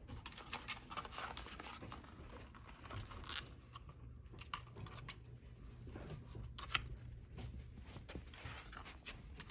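A puppy chewing and tearing at a cardboard toilet paper roll: irregular crinkling, ripping and small knocks, with one sharper click about two-thirds of the way through.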